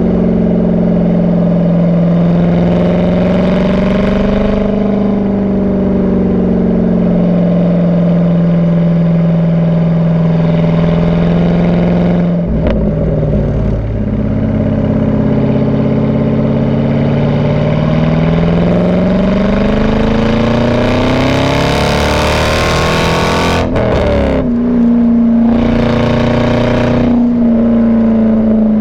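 C5 Corvette's 5.7-litre V8 heard at the tailpipe through a Borla cat-back exhaust with stock manifolds and the catalytic converters removed, while driving. It holds a steady cruise, changes gear about twelve seconds in, then pulls hard with the pitch climbing for about ten seconds before an upshift, and settles into a steady, slightly higher note.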